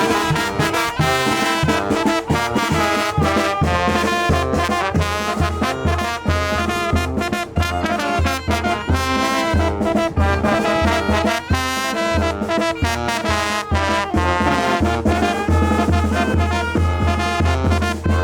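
Mexican brass band playing a chilena: trumpets and trombones carrying the tune over a steady, pulsing low bass line.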